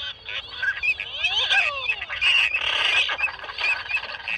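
A large flock of birds flying overhead in long V-shaped skeins, many calling at once. Short calls repeat over and over, mixed with longer calls that slide down in pitch.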